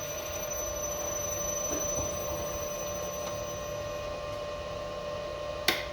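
Steady electrical hum with a whine from an LS iG5A variable-frequency drive (inverter) running on test after repair. A faint high tone stops about two-thirds of the way through, and one sharp click comes near the end.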